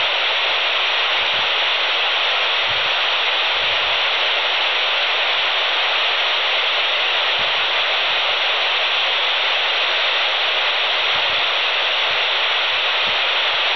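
Handheld VHF FM radio receiving 145.800 MHz with the squelch open and no station on the air: a steady, even rushing hiss of receiver noise.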